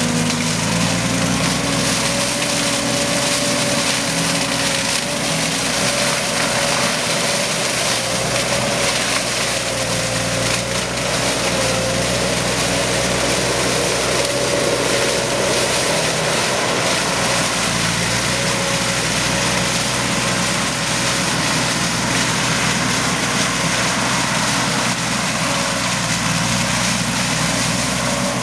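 ASV RC100 Posi-Track compact track loader's diesel engine running hard under load while its front mulching head shreds dense overgrowth. A steady, slightly wavering whine sits over the engine note.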